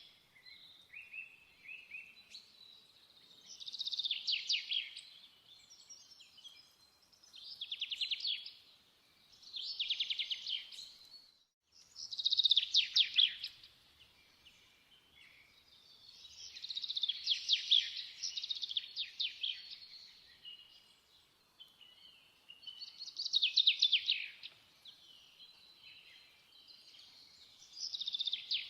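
Songbird singing in repeated phrases of rapid high chirps and trills, one phrase every three or four seconds.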